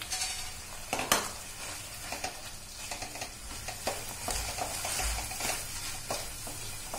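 Wooden spatula breaking up and stirring cooked rice into a sizzling beetroot masala in a stainless steel kadai: irregular scrapes and knocks of wood on steel over a steady sizzle, the sharpest knock about a second in.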